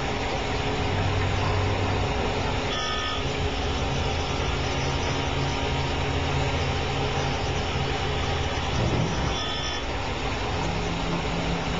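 Chevalier SMART Series grinder convex-grinding a brake component under flood coolant: a steady machine hum under an even hiss from the wheel and coolant spray. Two brief higher-pitched tones sound out, about three seconds in and again near nine and a half seconds.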